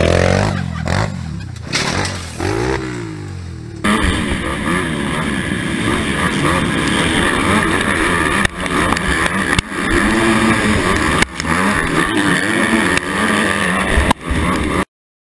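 A small dirt bike engine revving up and down. About four seconds in it changes abruptly to several motocross bikes running at high revs, heard close from a rider's own bike, which cuts off suddenly near the end.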